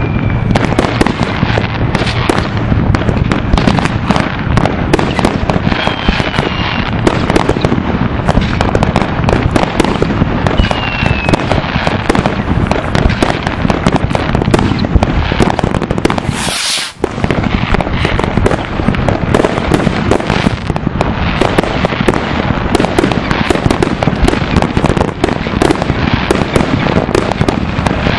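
A dense, continuous barrage of New Year's Eve fireworks and firecrackers: rapid overlapping bangs and crackling, with two short falling whistles from rockets. The barrage breaks off for a moment about two-thirds of the way through, then carries on.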